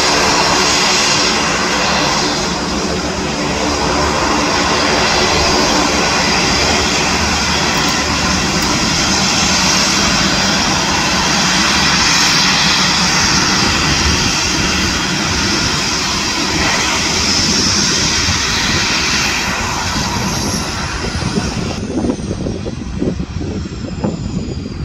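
Twin Garrett TPE331 turboprop engines of a Dornier 228-212 running steadily at ground idle with propeller noise. Near the end they are shut down: a high turbine whine falls in pitch and the sound drops away as the propellers spin down.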